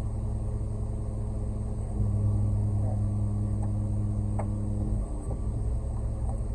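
Concrete mixer truck's diesel engine running with a steady low hum. It runs louder for about three seconds in the middle, as when the engine is brought up to build air pressure in the truck's air tanks.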